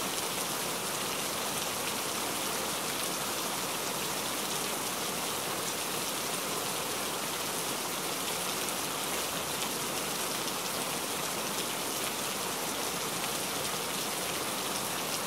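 Heavy rain falling steadily, a dense, even hiss of countless drops striking a surface.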